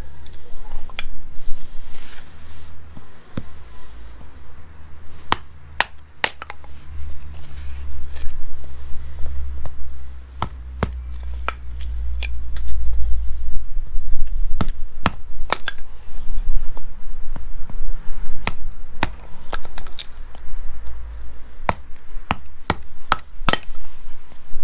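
A large saw-backed knife chopping and splitting small sticks of wood into kindling, giving irregular sharp knocks and cracks as the blade bites and slivers split off. A steady low rumble runs underneath.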